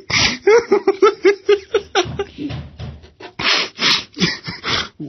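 A person laughing hard: a quick run of short, pitched 'ha-ha' pulses for about two seconds, then breathy gasps of laughter.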